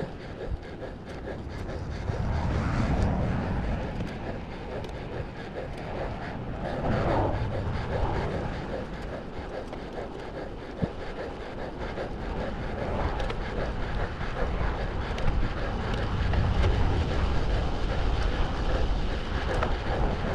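Wind rushing over a handlebar-mounted camera's microphone as a road bike rides along a paved trail, swelling and easing with the rider's speed and gusts.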